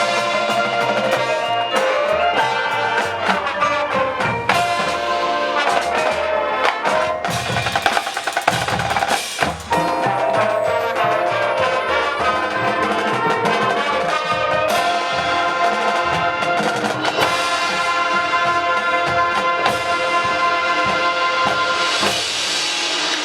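High school marching band playing its field show: brass instruments sustaining chords over a drumline of snare rolls and bass drum hits.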